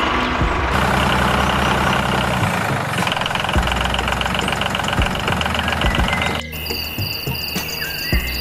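Engine idling steadily. About six and a half seconds in it cuts off abruptly and steady insect chirping takes over.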